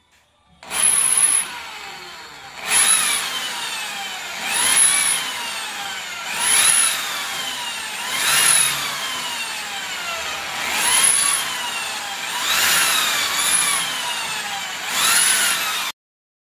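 Electric drill boring a series of holes through ceramic wall tile: about eight short bursts roughly two seconds apart, the motor's whine rising each time the trigger is squeezed and falling as it lets off, over the grind of the bit in the tile. It stops abruptly near the end.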